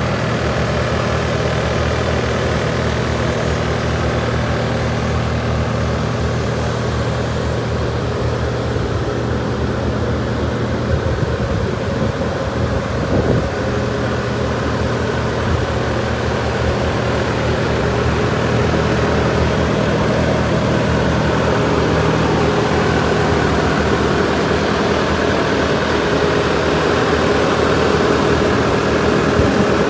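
Bobcat S770 skid-steer loader's diesel engine running steadily at idle, growing slightly louder in the second half.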